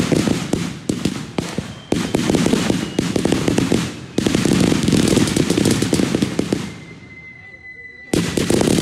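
Rapid rifle fire in long crackling bursts, many shots a second, with a lull about seven seconds in and a fresh burst near the end.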